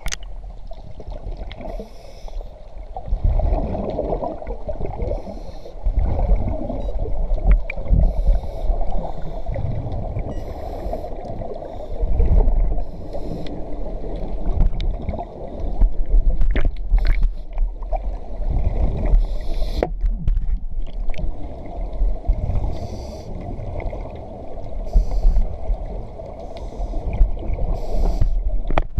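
Underwater sound of scuba divers' exhaled bubbles: a muffled, gurgling rumble that swells every few seconds with each breath.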